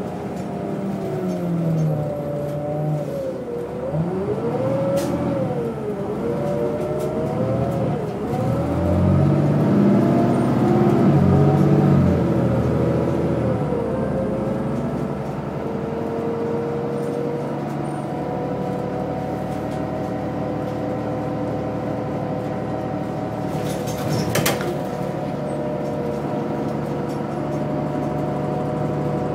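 Transit bus engine and drivetrain heard from inside the cabin on the move. The engine note rises and falls through the first half, then settles into a steady hum, with a brief click about 24 seconds in.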